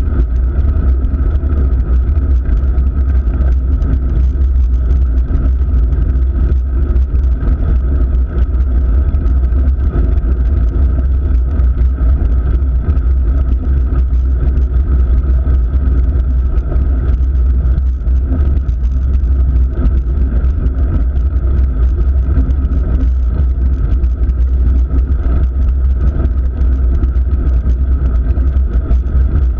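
Steady, loud low rumble of wind buffeting and road vibration on a GoPro mounted on a road bike's handlebars while it rides up a paved road.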